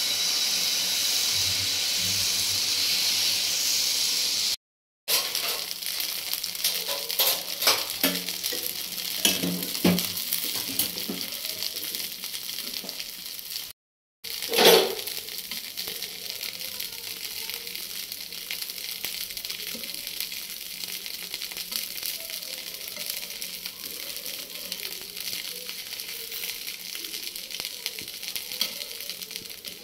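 Chana dal dosa batter sizzling on a hot tawa: a loud steady hiss as the fresh batter hits the pan, then a quieter crackling sizzle with scattered ticks as the dosa crisps. One brief louder noise comes about 15 s in, and the sound drops out briefly twice.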